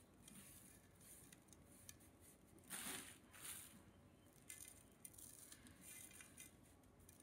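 Faint patter and rustle of dry spice rub sprinkled by hand onto a raw beef joint and patted in, with one louder rustle about three seconds in.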